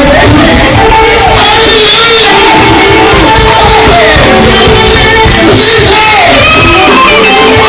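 Live church praise music, very loud: voices singing and calling out over dense instrumental accompaniment.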